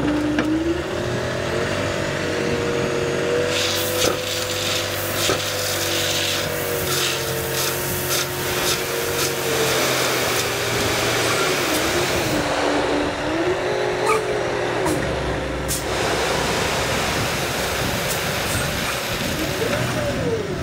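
Dump truck unloading a load of 1-inch-minus crushed stone: its engine runs at raised revs, its pitch rising and falling, while stone rattles and clatters out of the tipping bed, most plainly between about four and nine seconds in.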